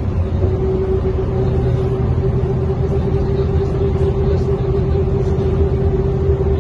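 Mercedes-Benz O405N2 city bus heard from inside the cabin while driving: a deep, steady engine drone with a steady whine held at one pitch.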